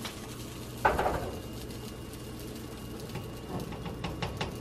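Pancake batter sizzling faintly in a lightly oiled nonstick frying pan, a steady soft hiss. A brief louder noise comes about a second in, and a few small ticks near the end.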